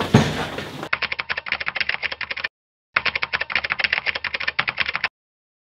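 A thump, then a typewriter typing sound effect: rapid key clacks, about ten a second, in two runs of roughly one and a half and two seconds with a short pause between, each ending abruptly.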